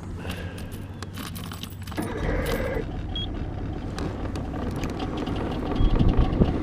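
50-horsepower Evinrude outboard motor running, getting louder about two seconds in, with a light metallic jingling of small clicks over it.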